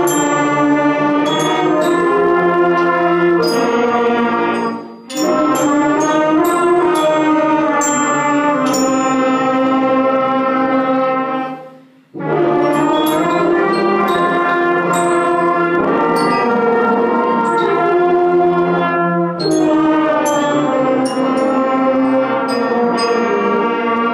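Beginning school concert band of wind and brass instruments playing held chords together in phrases, breaking off briefly twice, with short sharp ticks over the top.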